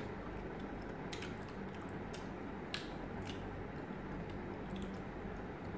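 Faint eating sounds: chewing and a few light clicks of hands and skewers at the plates, over a steady low hum.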